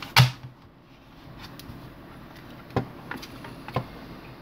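Plastic clicks and knocks of a wall charger's plug being pushed into a power strip socket and a USB tester being fitted to it: one sharp click just after the start, then several lighter clicks and taps.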